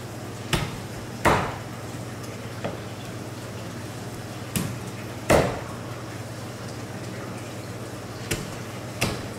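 Heavy kitchen knife chopping through a salmon head and collar bones onto a wooden cutting board: seven sharp chops at uneven intervals, the loudest about a second in and about five seconds in. A steady low hum runs underneath.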